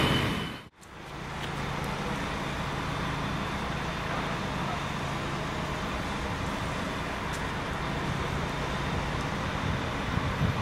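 Alstom Coradia Lint 54 diesel railcar standing at the platform with its diesel engines idling: a steady, even hum. It opens with the tail of a passing train, cut off under a second in.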